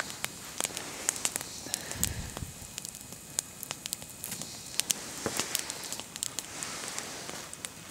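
Irregular crackling and snapping: many sharp, uneven clicks over a faint hiss, with a brief low thump about two seconds in.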